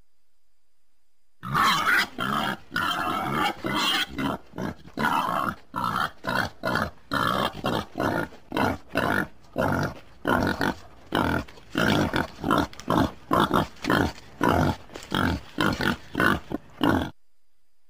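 Wild boar grunting in a long run of short, rough grunts, about two a second, starting about a second and a half in.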